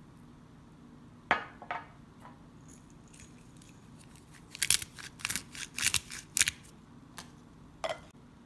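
A spice container being worked to dust seasoning onto roasted corn: two sharp crunches, then a quick run of crunching, grating bursts about five seconds in, and one more near the end.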